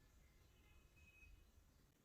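Near silence: faint low background rumble, with a few very faint high tones about halfway through.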